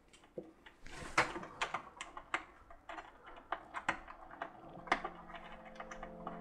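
Irregular light plastic clicks and taps from hands fitting two cables into their connectors at the back of a Bambu Lab AMS feeder unit and handling its plastic housing.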